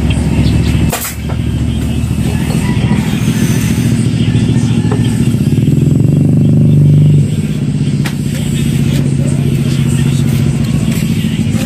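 A motorcycle engine running steadily, briefly revved about six seconds in so that its pitch and loudness rise, then dropping back about a second later. A couple of light metallic clinks of parts being handled.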